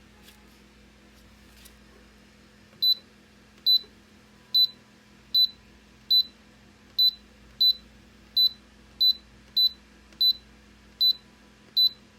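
Electronic beeping from the Nuwave Bravo air fryer oven's digital control panel: thirteen short, high beeps at slightly uneven spacing, starting about three seconds in.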